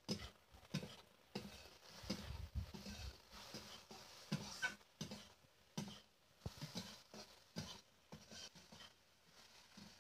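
Metal spatula scraping and knocking against a metal kadai as chopped okra is stir-fried, in quick irregular strokes that thin out near the end.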